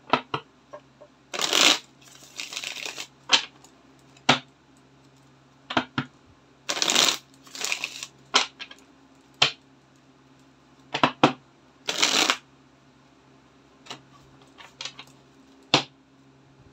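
Tarot cards being shuffled by hand: irregular short bursts of cards sliding and rustling against each other, broken by sharp single clicks.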